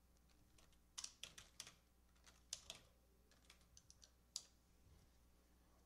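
Faint computer keyboard typing: a dozen or so separate keystrokes in an uneven run, from about a second in until about four and a half seconds in.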